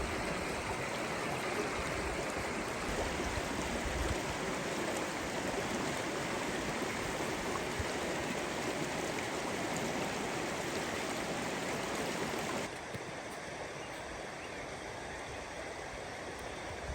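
Running water rushing steadily, like a stream. Just before the end it drops suddenly to a quieter hiss.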